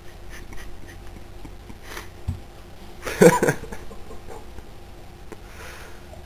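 A boxer dog eating a raw fish: small smacking and chewing clicks, with one louder, noisy burst about half a second long about three seconds in.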